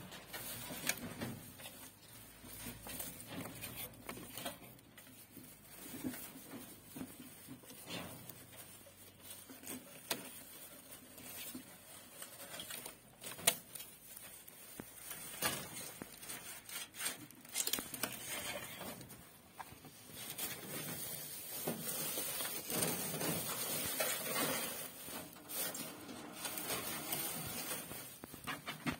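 Dry straw rustling and crackling in a rabbit's nest box as a pregnant doe shifts and noses about in her nesting straw, with irregular small taps. Near the end a hand rummages through the straw, giving a quick run of crackles.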